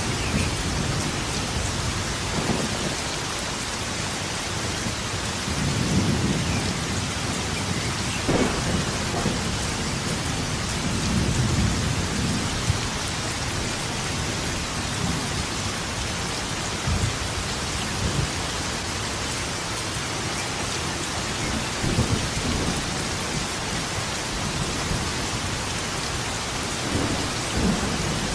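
Steady heavy rain with rolling thunder. Low rumbles swell and fade every few seconds, and a few sharper cracks come through.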